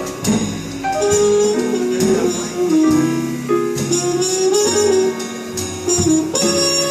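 Live jazz quartet playing: a melody line over bass, drums and shimmering cymbals.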